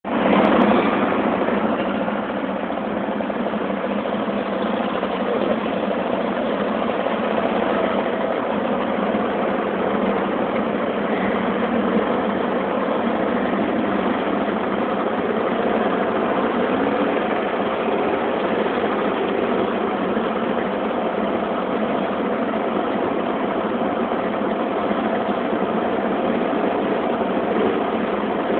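A procession of motor scooters riding slowly past one after another, their small engines running together in a steady mixed engine noise. It is slightly louder in the first second. The sound is captured by a phone, so it is thin and cut off at the top.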